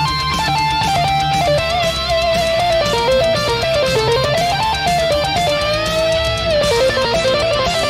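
Synthesizer lead solo played on a Roland FA-06 keyboard: fast runs of notes climbing and falling, with a long held note about six seconds in. Behind it is a melodic death metal band backing with distorted electric guitars.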